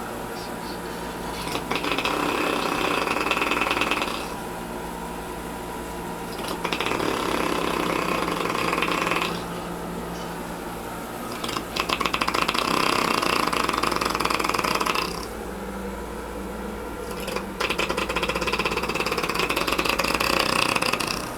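A person snoring with a motorcycle-like sound: four long snores about five seconds apart, each a rapid flutter lasting around three seconds, with quieter breathing between them.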